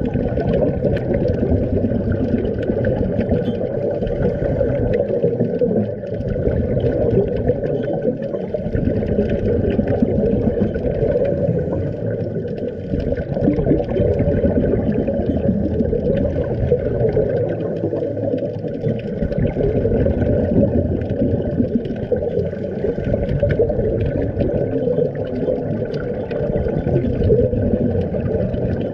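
Underwater noise picked up by a camera in its waterproof housing during a scuba dive: a steady, muffled rush with a fine crackle, the bubbling of divers' exhaled air from their regulators mixed in.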